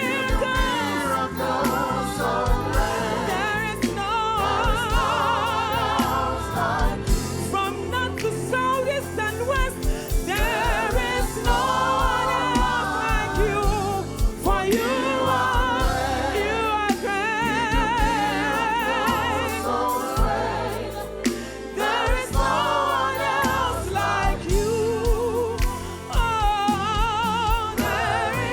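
Gospel worship music: singers with wide vibrato, choir voices joining, over a band with a steady drum beat.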